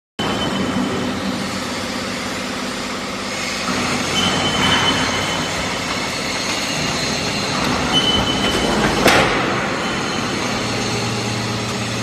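TCM-MC160 hydraulic scrap metal baler running: a steady machine drone with a thin high whine from the hydraulic system as its cylinder swings the hinged lid closed over the press box. There are brief louder surges about five and nine seconds in.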